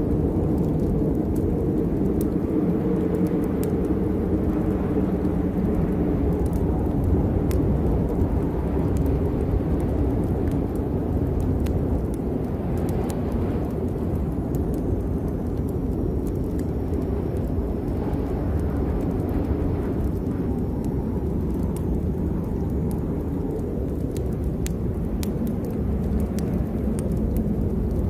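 Rainstorm ambience: a steady low rumble with scattered sharp ticks of drops throughout.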